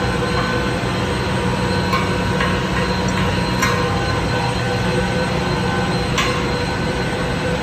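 Steady drone of running machinery, with a few sharp metallic clanks about two, three and a half, and six seconds in.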